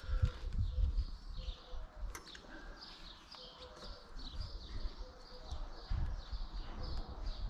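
Small birds chirping over and over in quick short calls, with dull low rumbling knocks in the first second and again about six seconds in.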